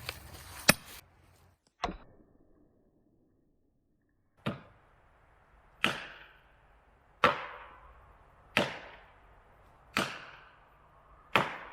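A hammer pounding felling wedges into the cut of a tree to free a chainsaw bar pinned in the kerf. Two strikes in the first two seconds, then after a pause six evenly spaced sharp blows, about one every second and a half, each with a short ring.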